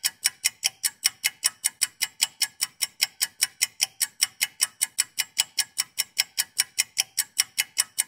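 Steady, even ticking, about five sharp ticks a second, that cuts off suddenly at the end.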